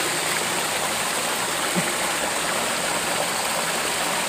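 Steady rush of water pouring from a water outlet into a channel.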